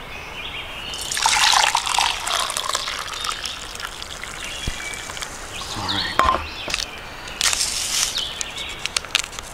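Just-boiled water being poured into a cup for coffee: a longer pour about a second in and a second, shorter pour near the end, with a few small clinks at the very end.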